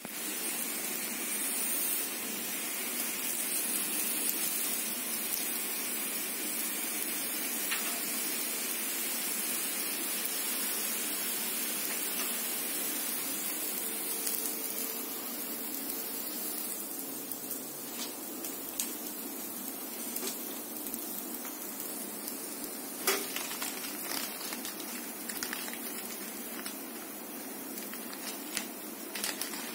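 Hot oil sizzling and crackling as food deep-fries in a black iron kadai, easing off somewhat about halfway through. A sharp click stands out about two-thirds of the way in.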